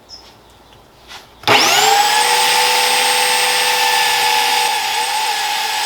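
An electric power tool motor switches on about a second and a half in. It spins up quickly to full speed and then runs steadily with a high whine.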